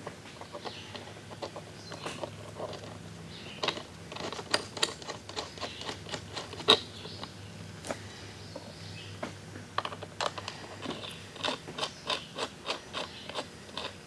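Ratchet wrench clicking and metal tools clinking on bolts. There are irregular clicks, one loud clink about halfway through, and a quicker run of ratchet clicks at about three a second near the end.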